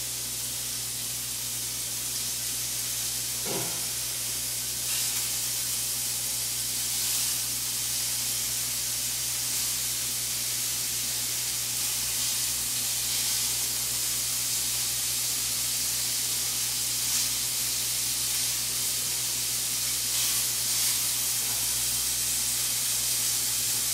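Cubed bacon sizzling in a hot skillet, a steady frying hiss, with a single light knock about three and a half seconds in.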